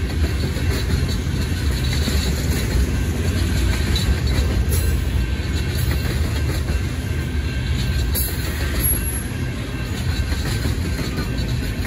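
Freight cars of a Union Pacific local train rolling past, a mix of tank cars and covered hoppers: a steady low rumble of steel wheels on rail with a few faint clicks.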